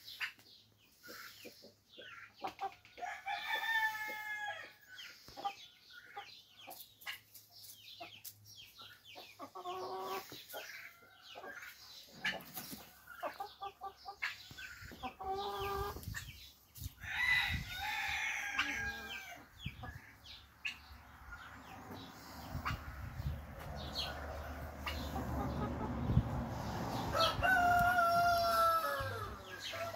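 Domestic hens clucking and calling on and off, with many short clicks in between. A longer drawn-out call comes near the end over a low rumble.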